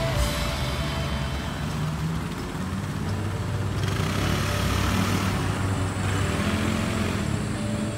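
City street traffic: car engines running at low speed, with a car driving past about four to five seconds in.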